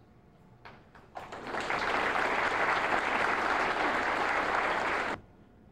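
Audience applauding, starting about a second in, lasting about four seconds and then cutting off abruptly.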